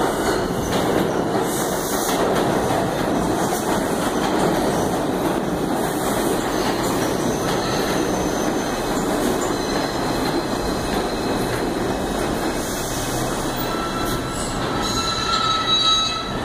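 R142 subway train pulling into an underground station, with a loud, steady rumble of wheels on the rails. About two seconds before the end, a high squeal rises as it slows.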